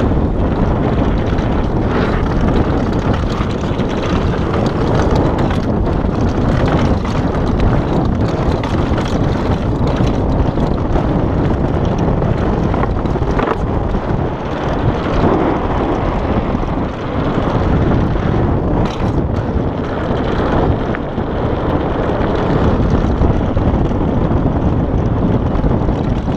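Wind rushing over an action camera's microphone as a downhill mountain bike descends at speed, with the rattle of the bike over the dirt trail and a few sharper knocks over bumps.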